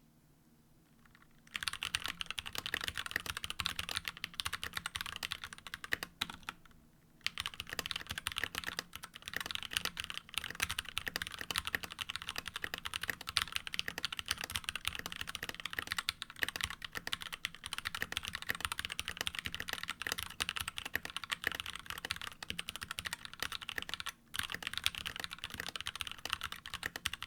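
Fast, continuous typing on a Keychron K2 mechanical keyboard with Gateron G Pro Brown tactile switches, a dense run of key clicks and clacks. The typing starts about a second and a half in, stops for about a second around the six-second mark, and breaks again briefly near the end.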